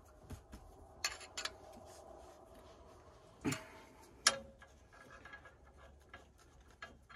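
Light metallic clicks and taps of a hand tool working on the top end of a Detroit diesel, around its injectors, with a few louder knocks about a second in and again between three and four and a half seconds.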